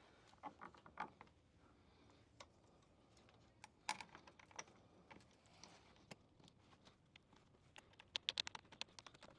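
Faint clicks and taps of hand tools and hardware as mud-flap mounting bolts are fitted and tightened, with a quick run of clicks near the end.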